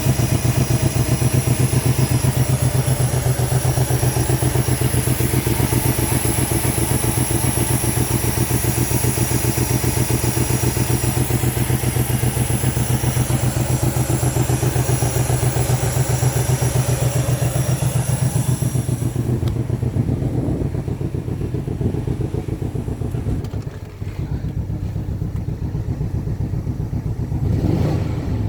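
Range Rover L322 4.4-litre V8 engine idling with a steady, even pulse and a high whine over it. The whine fades out about two-thirds of the way through, and the engine note swells briefly near the end.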